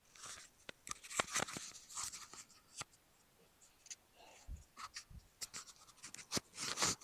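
Handling noise: scattered clicks, scrapes and rustles, with a couple of low thumps a little past the middle.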